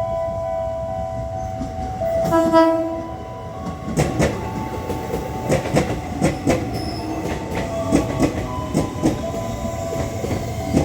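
Electric commuter train: a short horn blast about two seconds in, then the train rolling through with its wheels clacking in a steady rhythm over the rail joints. Held electronic chime tones fade out at the start.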